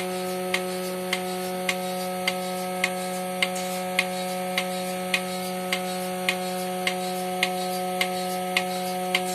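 Portable bucket milking machine running: a steady hum from the vacuum pump's motor, with the pulsator clicking evenly a little under twice a second.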